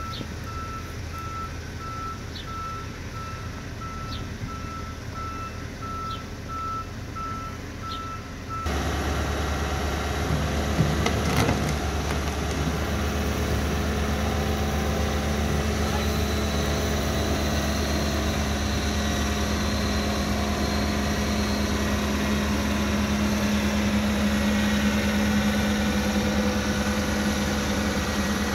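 A backup alarm beeps in quick, even pulses; a little under a third of the way in the sound switches abruptly to the louder, steady running of a tracked excavator's diesel engine and hydraulics, its hum growing stronger toward the end as the machine lifts an underground fuel tank on a chain. One short metallic clank sounds shortly after the change.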